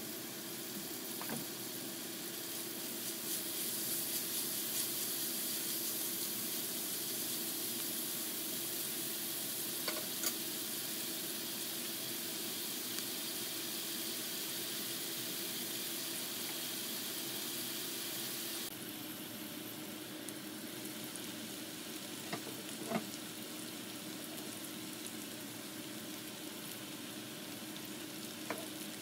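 Chopped beets, carrots and onions frying in olive oil in a skillet: a steady sizzling hiss, with a few light knocks. The hiss drops abruptly in level about two-thirds of the way through.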